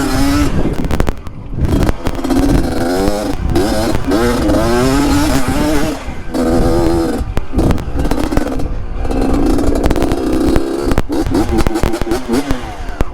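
Yamaha DT trail motorcycle with an RX-King two-stroke single engine, revving up and down again and again under load on rocky ground, with clattering knocks mixed in.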